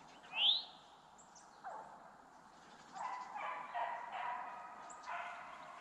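Hunting hounds giving tongue: a sharp rising yelp about half a second in, then several hounds baying together through the second half.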